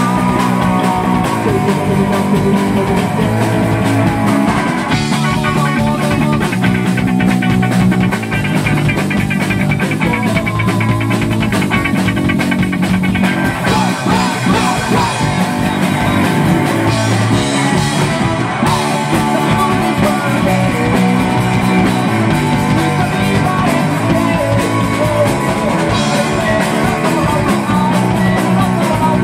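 Live rock band playing loud: electric guitar, bass guitar and drum kit keeping a steady beat, with the guitarist singing.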